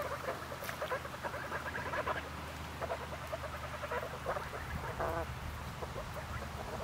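Domestic waterfowl making soft, quick chattering calls in short runs, one call about five seconds in sliding down in pitch, over a steady low hum.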